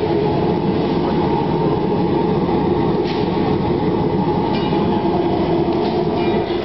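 Mesh-belt conveyor dryer running: its forced-air Baite burner and fans make a steady, loud roar with a constant hum, and a few faint ticks come through.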